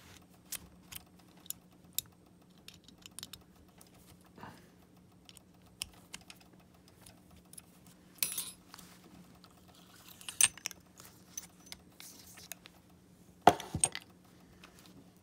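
Metal clicks and clinks of an Allen key and a steel machining fixture being handled as its socket cap screws are loosened to unclamp a saxophone mouthpiece, with a louder knock near the end.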